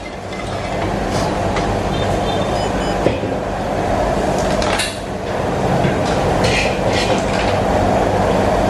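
Steady kitchen roar, loud and continuous with a low hum under it, and a few faint knocks of utensils.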